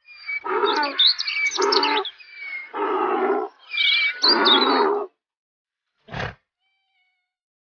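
An animal calling loudly four times, each call lasting about half a second to a second, with birds chirping over it. About six seconds in comes a short sharp knock.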